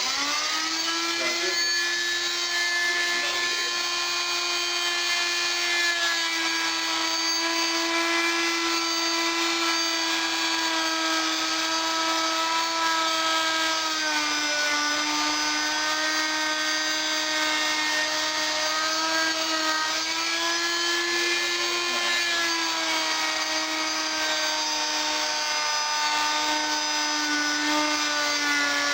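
Battery-powered oscillating multi-tool running steadily as it cuts through vinyl floor tile, a continuous buzzing whine that starts right at the outset. Its pitch sags a little a couple of times as the blade is pushed into the cut.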